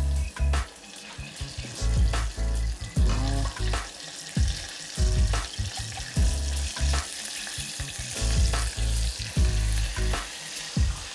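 Coated tofu pieces deep-frying in a saucepan of hot oil, a steady sizzle, with repeated low thumps and knocks from hands working pieces in a steel bowl of flour.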